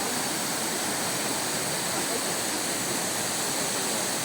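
Mountain waterfall: a steady, unbroken rush of falling water.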